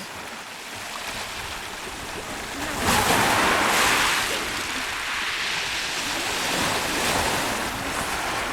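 Sea waves crashing and washing on the shore of a rough Black Sea, one big breaker about three seconds in, then the water rushing and surging back. Some wind on the microphone.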